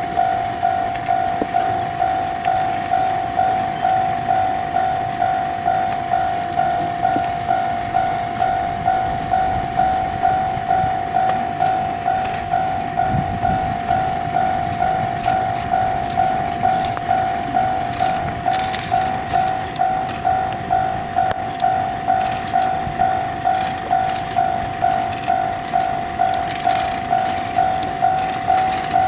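Japanese level-crossing electronic warning bell ringing steadily at about two strikes a second while the crossing is closed for a Shinkansen. Faint knocks and clicks come through in the second half.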